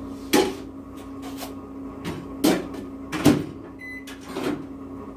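Microwave oven being loaded: several knocks and clunks of its door and of a dish being handled, then a single short electronic keypad beep just before four seconds in, over a steady low hum.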